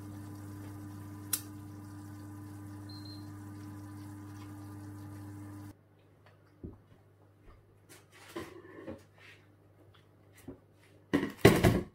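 Oven fan running with a steady hum, with a single sharp click about a second in. It stops abruptly about halfway through, leaving quiet with scattered small sounds and a short loud burst near the end.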